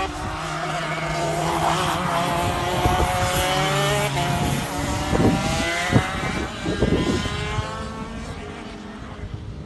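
Racing kart engine running at high revs, its high-pitched note climbing gradually in pitch, with a few sharp knocks partway through; the sound is likened to a Formula 1 car. It fades somewhat near the end.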